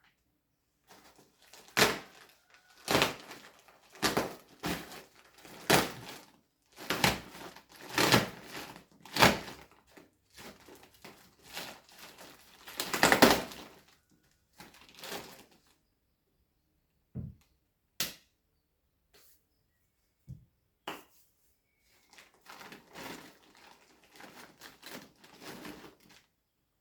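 A delivered parcel of mats being torn open: a run of loud ripping and crinkling of the packaging through about the first fifteen seconds, then a few separate knocks and softer rustling near the end.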